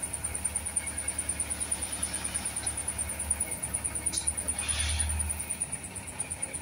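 Diesel engine of a small wheel loader running with a steady low pulse as its raised bucket is worked over a dump truck bed. A click about four seconds in is followed by a short rush of noise.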